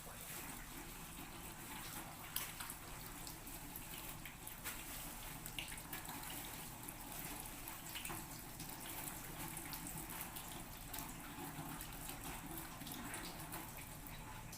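Water running from a tap into a sink, a faint steady rush with small scattered splashes and clicks.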